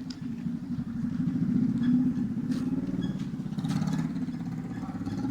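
A motor vehicle engine running steadily, with a few faint clicks over it.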